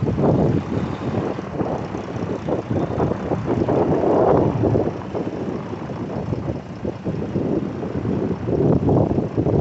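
Diesel engine of a 2008 Western Star 4900 tandem-axle vacuum truck running as the truck drives slowly in a turn, swelling briefly about four seconds in and again near the end.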